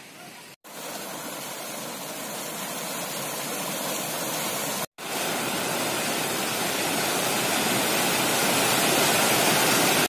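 Shallow river rapids, white water rushing over rocks as a steady noise that grows louder toward the end. It is broken by two short gaps, about half a second and about five seconds in.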